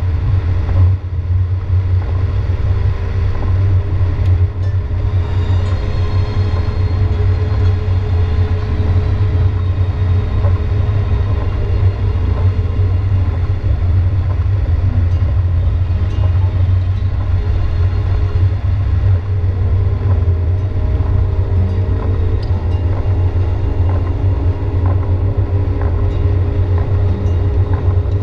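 Car driving on a wet highway in heavy rain: a steady low road and engine rumble with a continuous hiss of tyres on wet pavement and rain over it.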